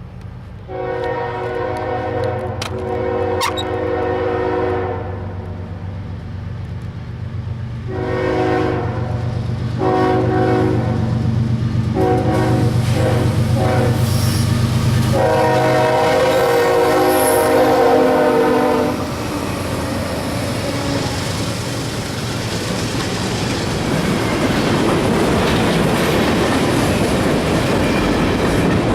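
Diesel freight locomotive, a GE ES44AH, sounding its horn in five blasts: one long, two shorter, one brief and a final long one, over the steady rumble of its engine. Then the rush and clickety-clack of the passing train grows louder.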